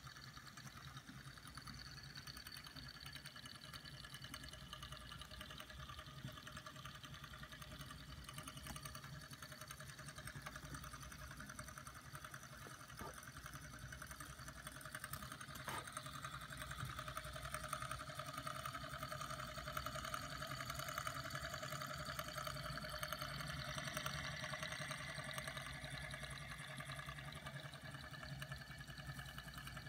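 Two small flame-eater (vacuum) engines, Bengs Modellbau 'Laura' models with glass cylinders and pistons, running together with a steady, fast, light mechanical rhythm. It grows somewhat louder about halfway through, with two faint clicks near the middle.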